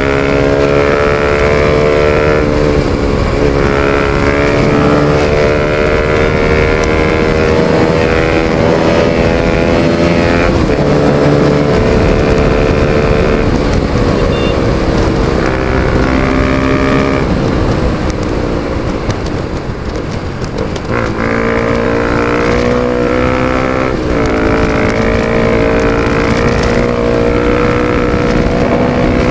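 Bajaj Pulsar RS200's single-cylinder engine running through a full-system Akrapovic exhaust with no dB killer, accelerating hard. The pitch climbs steadily in each gear and drops sharply at each of several upshifts, with a brief ease-off about two-thirds of the way through. Wind buffets the microphone.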